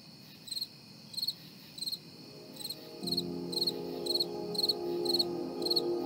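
A cricket chirping in short, even chirps about twice a second over a steady high insect trill. Soft ambient music with held chords fades in about halfway through.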